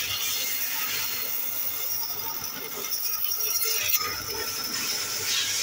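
A power saw with a thin vertical blade cutting through a pine board: the motor runs steadily under the rasp of the blade in the wood.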